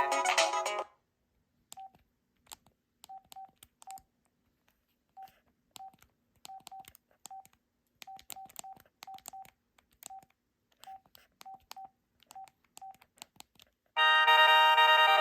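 A Sanyo SCP-8100 cell phone's preloaded ringtone cuts off about a second in. About twenty short, single-pitched key beeps with faint button clicks follow at uneven spacing as the keypad is pressed. Near the end the next ringtone starts, louder.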